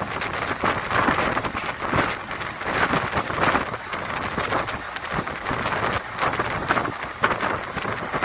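Express train running at speed, heard from an open window or door: a steady rush of air and wheel-on-rail noise with irregular clicks and rattles.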